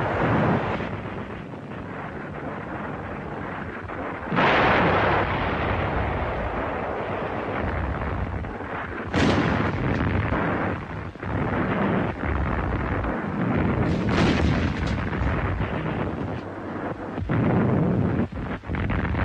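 Artillery shelling: several heavy shell blasts a few seconds apart over a continuous rumble of gunfire and explosions.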